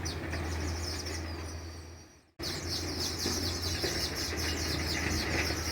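A flock of weaver birds chattering: many rapid, overlapping high chirps over a steady low hum, which the listener takes to be streaked weavers. The sound fades and cuts out for a moment a little past two seconds in, then resumes.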